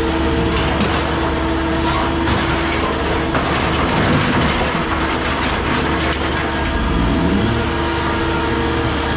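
Heavy scrap-handling machinery running steadily with a constant hum, with scrap metal scraping and knocking as it is worked.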